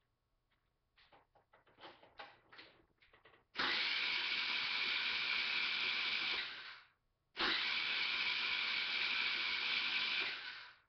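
Taotao 50cc moped's electric starter cranking the engine in two steady tries of about three seconds each, after a few light clicks; the engine turns over but never catches, a no-start that the owner thinks is probably the spark plug.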